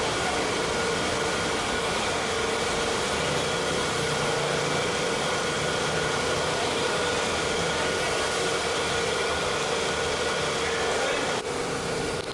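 Steady whine of a small electric motor with a rush of air, like a blower or vacuum, changing abruptly near the end.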